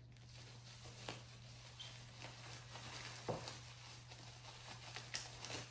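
Faint rustling and crinkling of plastic packaging as a hand digs through it, with scattered light clicks and ticks over a low steady hum.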